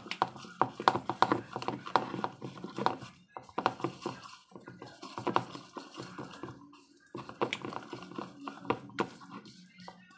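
Pink silicone spatula beating a wet glutinous rice flour batter in a ceramic bowl, making quick irregular taps and wet slaps against the bowl, with a few short pauses. The eggs have just gone in and are being mixed into the batter.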